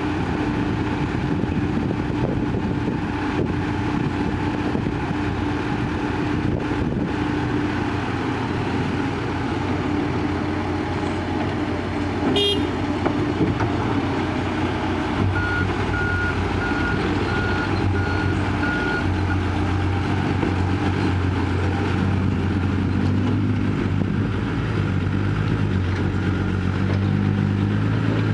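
Heavy diesel engines of a tracked excavator and dump trucks running steadily, with the engine note deepening and growing stronger in the last third. A brief horn toot sounds about twelve seconds in, then a reversing beeper gives about five evenly spaced beeps.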